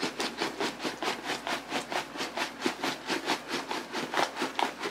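Lemon pepper seasoning shaken from a shaker, the grains rattling in a fast, even rhythm of about five shakes a second.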